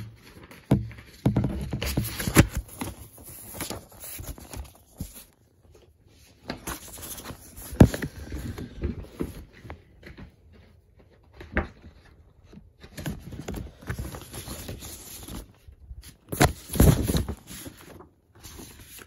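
Vinyl records and their cardboard album jackets being handled close to the microphone: irregular rustling and scraping with scattered sharp knocks and clicks. There are busy spells and short quiet gaps between them.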